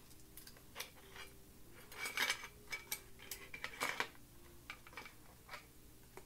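Scattered clicks and light clattering of the hard parts of a spider-legged phone and camera mount being handled and fitted together, with a few louder bunches of clicks about two and four seconds in.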